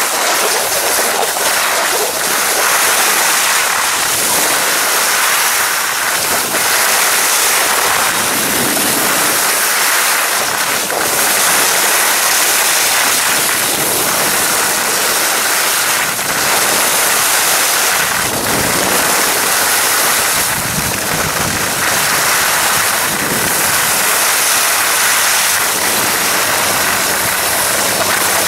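Skis hissing and scraping steadily over packed snow during a downhill run, with wind rumbling on the microphone at times.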